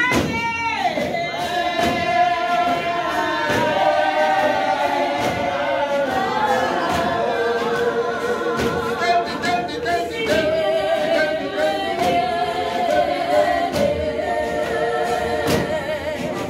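Congregation of Revival worshippers singing a hymn together in long held notes with a wavering pitch, with occasional sharp thumps.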